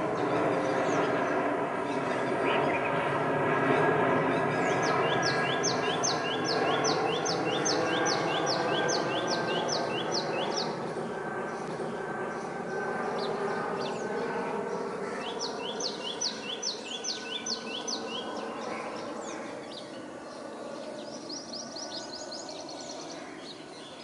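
A small songbird's rapid trills of high repeated notes in three runs: a long one from about five seconds in, another around sixteen seconds, and a short one near the end. Under them runs a steady low drone with several tones, loudest early on, slowly sinking in pitch and fading.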